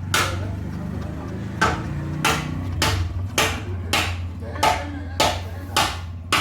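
A series of about ten sharp metallic knocks, roughly one or two a second, like hammer blows, over a steady low hum.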